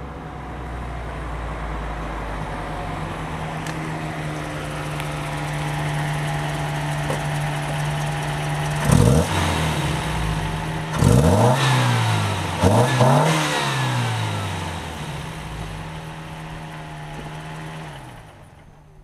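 Toyota 3TC four-cylinder engine exhausting through a Dynomax Super Turbo muffler, with an exhaust leak at the flange. It idles steadily, is blipped three times in quick succession, then settles back to idle and fades out near the end.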